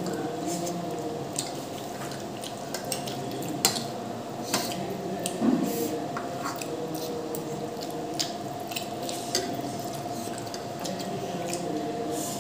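Two boys eating ramen noodles: wet slurping and chewing, with forks and spoons clicking against the bowls at irregular moments.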